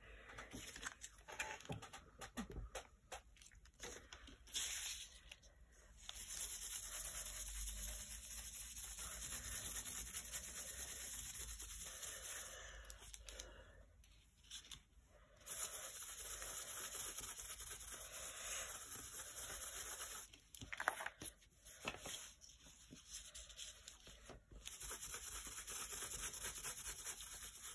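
A dry paintbrush rubbing and dabbing acrylic paint through a stencil onto glossy book paper, heard as a faint rubbing hiss in three long stretches with short pauses between.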